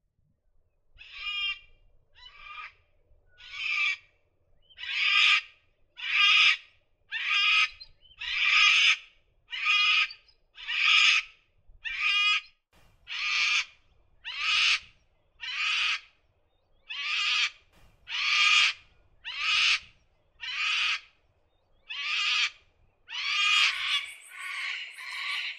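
Sulphur-crested cockatoos screeching: a series of about twenty loud, harsh calls, roughly one a second, with calls overlapping near the end.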